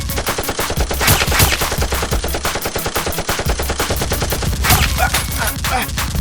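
Rapid automatic gunfire, many shots a second without a break, most likely sound effects laid over a Nerf-blaster firefight.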